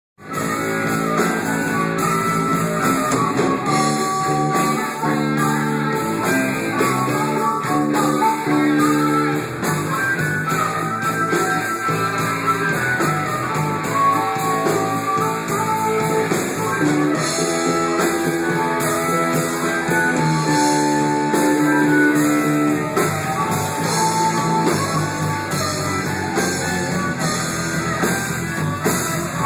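A live band playing an instrumental passage led by guitar, before any singing comes in.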